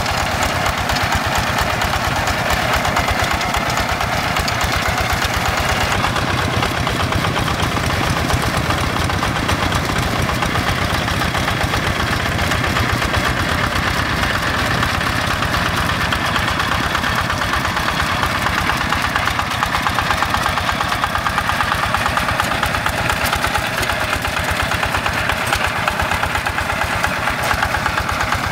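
Single-cylinder Yanmar diesel engine of a Quick G1000 two-wheel hand tractor running steadily with an even, rapid chug while the tractor works through a flooded rice paddy on its steel cage wheels.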